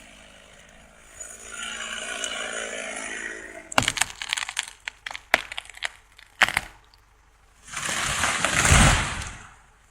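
Tree trunk cracking as it gives way, a rapid series of sharp cracks over a few seconds, followed about two seconds later by a rushing crash with a low thud as it comes down.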